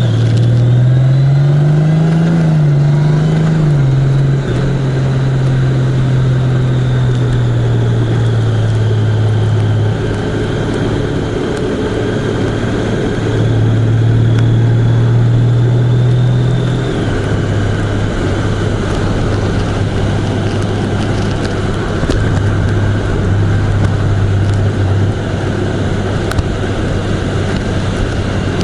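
Road vehicle's engine running while driving, its pitch rising over the first few seconds and then holding steady, stepping down slightly about two-thirds of the way through, over steady road noise.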